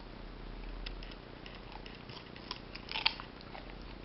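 Puppy chewing a raw carrot: scattered crisp crunching bites, the loudest cluster about three seconds in.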